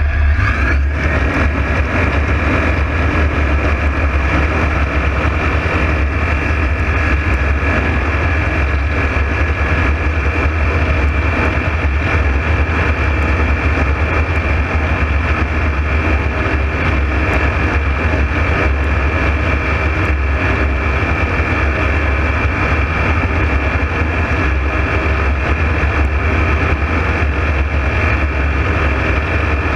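A loud, steady engine or motor drone that keeps going without change.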